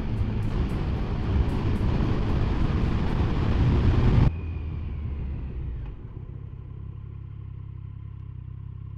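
Triumph Sprint 1050's three-cylinder engine under way with loud wind rush on the helmet microphone, rising slightly, then cut off abruptly a little over four seconds in. After that the engine runs at a steadier, quieter low note.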